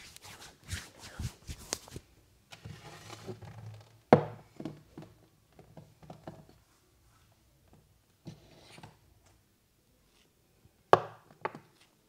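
Hands massaging a head: short runs of sharp slaps or taps, the loudest about four seconds in and again near the end, with softer rubbing of hair between them.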